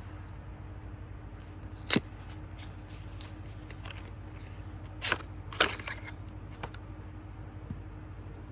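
Hands handling a small cardboard cosmetics box and taking out a plastic blush compact: light ticks and rustles, one sharp click about two seconds in, and a cluster of louder clicks and scrapes around five to six seconds in, over a steady low hum.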